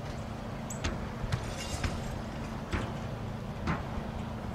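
A steady low mechanical hum with about five short, sharp clicks or creaks at irregular intervals.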